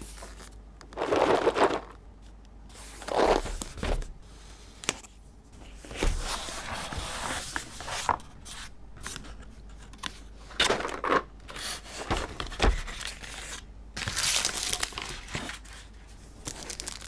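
Packaging being torn open and handled, tearing and crinkling in several separate bursts with a few light knocks and clicks in between.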